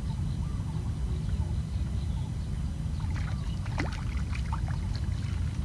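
Wind buffeting the microphone in a steady low rumble, with a few faint high chirps and one short falling whistle a little past the middle.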